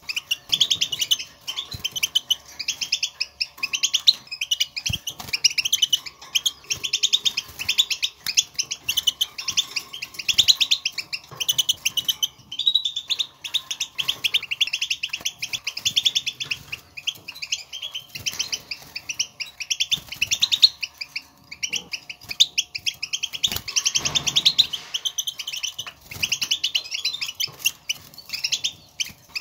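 European goldfinch chatter: rapid, dense twittering of short high calls, the 'batbata' contact calls goldfinches give to call to one another in the wild. It runs on almost without a break, thinning briefly about halfway through.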